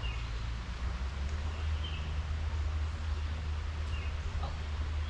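Outdoor ambience: a steady low rumble with a few short, high bird chirps spaced about two seconds apart.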